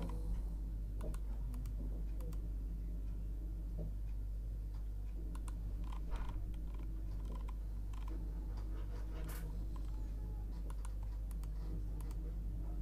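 Irregular clicks of a computer mouse and keyboard, a few at a time, over a steady low hum.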